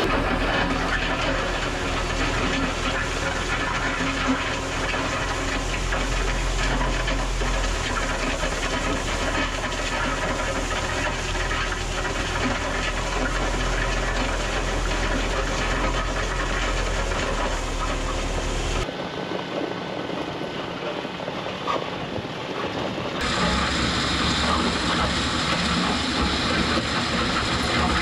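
TYM 754 tractor's diesel engine running steadily under load while dragging a land plane over a gravel road, with gravel scraping and rattling against the blade. The deep engine sound drops out abruptly about two-thirds of the way through, and a brighter, harsher gravel noise takes over near the end.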